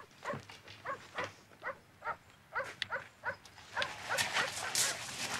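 A dog barking over and over in short, even barks, about three a second. In the last second or so, footsteps crunching on gravel become the loudest sound.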